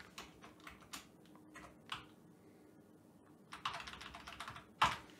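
Computer keyboard keystrokes while text is deleted and corrected: scattered single key clicks, a quicker run of keystrokes about three and a half seconds in, and one sharper click near the end.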